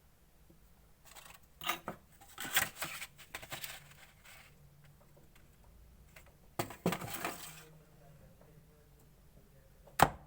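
Clear slime being handled and mixed by hand: two spells of crackly, squelching bursts, then a single sharp click near the end.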